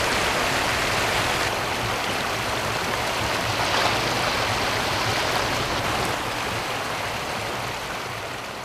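Fast-flowing river water rushing steadily, fading out near the end.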